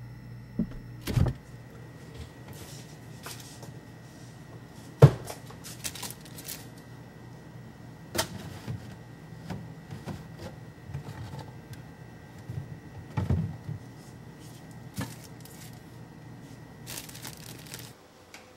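Scattered knocks and clatters over a steady low hum, with one sharp knock about five seconds in and a brief rustle near the end, after which the hum stops.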